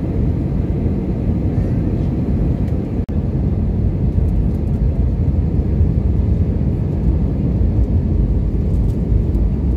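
Steady jet airliner cabin noise on approach, engine and airflow heard from inside the cabin at a window seat. The level dips briefly about three seconds in.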